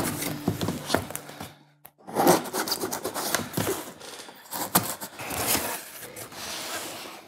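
A knife blade slicing through packing tape on a cardboard box, in a run of scraping, rasping strokes, then cardboard flaps and packing rustling as the box is opened. A short silent break comes a little before two seconds in.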